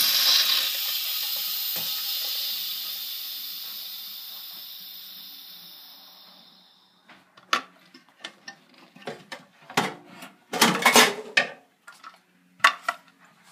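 Pressure cooker venting steam through its release valve in a loud hiss that fades away over about six seconds as the pressure drops. Then comes a series of metal clicks and clanks as the locking handle is worked and the aluminium lid is lifted off, loudest about eleven seconds in.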